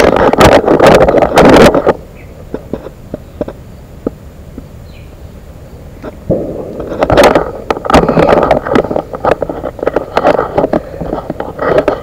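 Rustling and scuffing of clothing and vegetation against a body-worn camera's microphone, with footsteps, while walking along a forest path. It is loud for the first two seconds, drops away for a few seconds, then comes back loud from about six seconds in.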